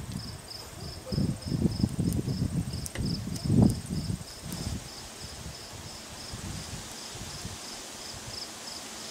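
An insect chirping steadily, about three even chirps a second. In the first half come low rustling and knocking noises as onion rings and bun tops are set onto the burgers, the loudest about three and a half seconds in.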